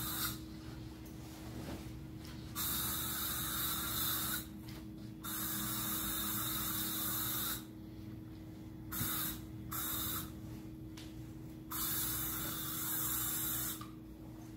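Aerosol spray can hissing in several spells of one to two seconds each, with short pauses between.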